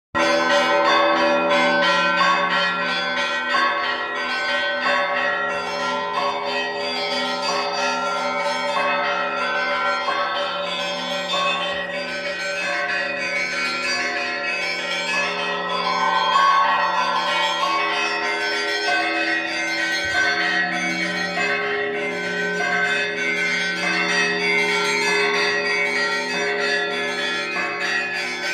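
Easter peal of church bells: several bells of different pitches struck in quick, overlapping succession, with the deep tone of a large bell sounding steadily beneath them.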